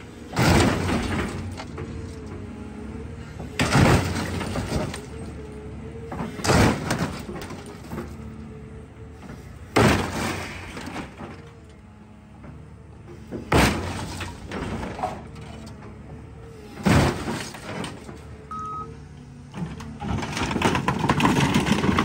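Excavator bucket slamming down on a rusted classic car body to crush it: six heavy crunching impacts of bending sheet metal and breaking glass, roughly every three seconds, then a longer grinding crunch near the end as the bucket presses down, over the steady hum of the excavator's diesel engine.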